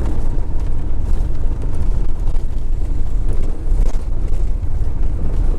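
Motorhome driving along: a steady rumble of engine and road noise, heavy in the low end.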